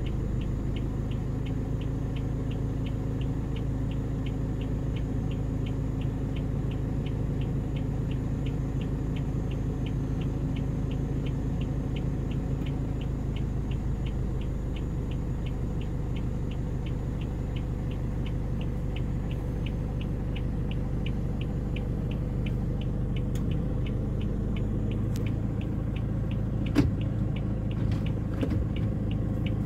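Steady low hum of an idling vehicle engine, with an even ticking of about three ticks a second running over it and a single sharp click near the end.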